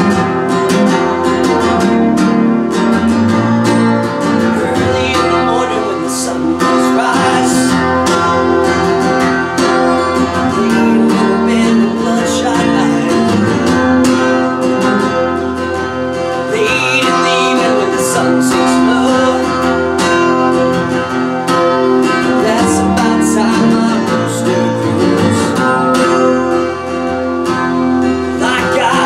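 Acoustic guitar being strummed and picked, a steady continuous jam.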